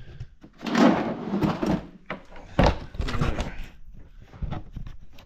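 Heavy metal press weights being shifted and dragged into place on a shop press: a long scrape about a second in, then a sharp clank, and further knocks and scrapes. Making lots of racket.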